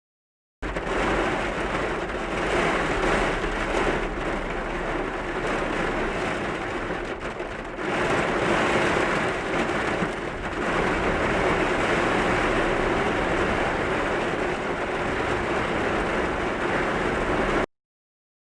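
Typhoon rain and wind: a steady, heavy rush of rain with gusting wind. It starts suddenly just after the beginning and cuts off suddenly near the end.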